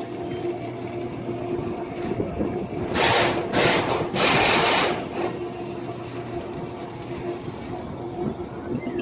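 Woodshop machinery running with a steady hum, and loud bursts of rushing noise from about three to five seconds in.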